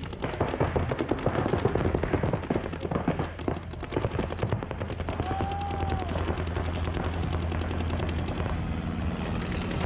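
Many paintball markers firing in rapid strings of pops, dense at first and thinning out after about five seconds. A short tone sounds briefly about halfway through.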